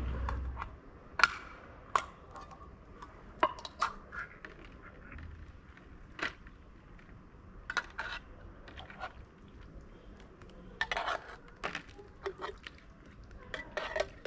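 Wet cat food being scraped and tapped out of a metal tin into a plastic tray: irregular sharp metallic clicks and short scrapes.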